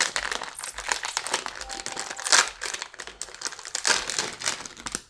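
Plastic wrapper of a Gery cheese crackers packet crinkling as it is pulled open and handled, a dense crackling with its loudest crackles about halfway through and again near the end.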